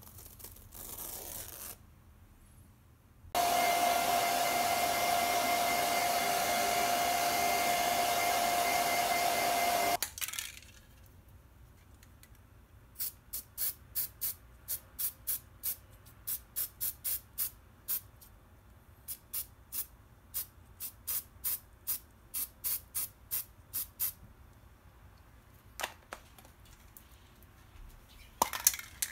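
An aerosol spray paint can sprays in one long steady hiss of about seven seconds, with a faint whistle in it. After a pause come many quick short spritzes of spray, about two a second, in runs.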